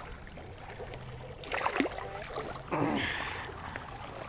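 Small waves lapping against a rocky shore, with scuffing and clothing rustle as someone climbs over the rocks. There are two brief louder bursts of movement about halfway through.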